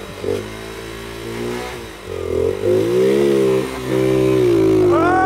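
Small single-cylinder four-stroke engine of a Monkey-bike-style mini motorbike running. It runs steadily at first, is revved up and eased off about two seconds in, then is revved again and held high near the end.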